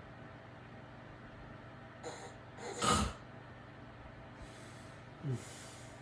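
A sleeping man snoring: one loud snort about three seconds in, then soft breaths and a short grunt falling in pitch near the end, over a steady low hum.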